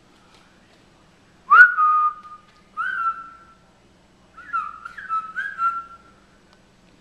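Indian ringneck parakeet whistling: one sharp, upswept whistle held briefly, a second shorter whistle, then a quick run of short whistles.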